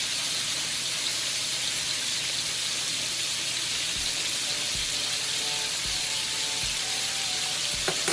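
Chicken pieces frying in hot oil: a steady sizzle that is getting them brown.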